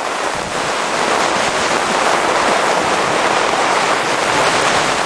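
Thunderstorm rain and wind sweeping through a campsite: a steady rushing hiss.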